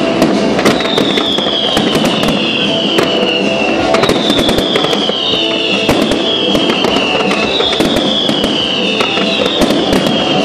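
Fireworks display: aerial shells bursting in many sharp bangs and crackles, one after another.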